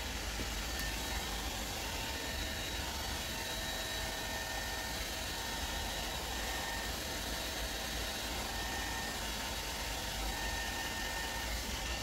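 Steady whirring noise with a few faint, thin whining tones coming and going above it; the level does not change.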